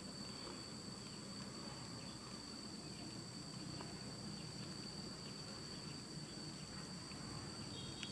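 Faint, steady high-pitched insect chorus, crickets or cicadas singing continuously, over a low background hum.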